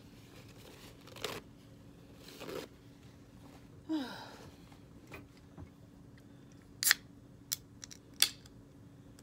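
Paper napkin rustling and crinkling in a few short bursts as hands are wiped. Near the end come four sharp clicks, the loudest two about a second apart, as the pull tab of an aluminium soda can is worked and snapped open.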